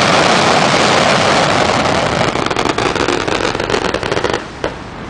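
Aerial fireworks going off: a loud, dense crackling of many small rapid pops, which falls away about four and a half seconds in.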